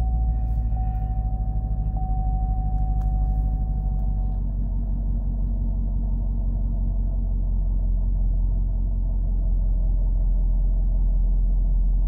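Chevrolet Camaro engine idling steadily just after starting up. A steady high tone runs over it and stops about four seconds in.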